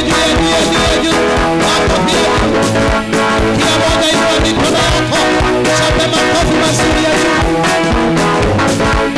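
Loud, upbeat praise-and-worship music with a steady drum beat, played by a church band, with singing over it.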